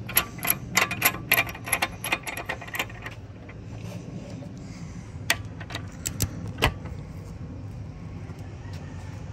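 Sharp metallic clicks and clinks of a socket and torque wrench being handled and fitted onto a socket held in a bench vise: a quick irregular run for the first three seconds, then a few single clicks about five to seven seconds in.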